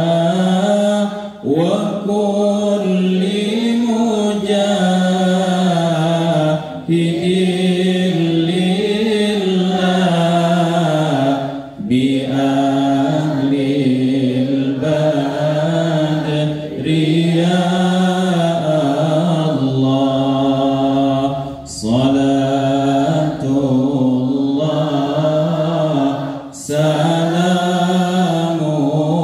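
A man's solo voice chanting in long, wavering melodic phrases through a microphone and loudspeakers, pausing briefly for breath every few seconds.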